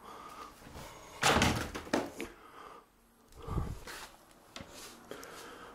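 A door being pushed open: a loud scraping knock about a second in, then a dull thump about two seconds later.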